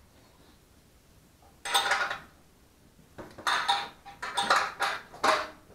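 Metal engine parts and tools clinking and clattering as a small engine is taken apart by hand, with a faint metallic ring. One clatter comes a little under two seconds in, then a run of several more from about three seconds in.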